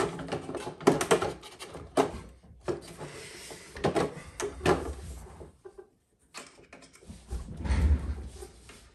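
Small hard parts of a radio-controlled truck being handled and fitted by hand: a series of irregular clicks and knocks, with a soft rustle about three seconds in and a low rumble near the end.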